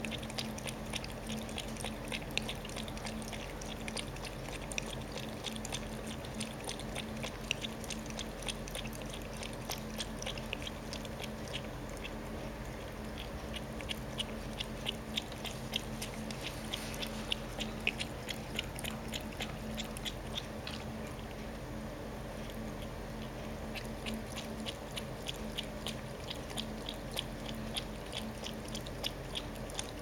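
Cat lapping water from a pet drinking fountain: a steady run of quick, wet tongue-laps, about four a second, over a steady low hum.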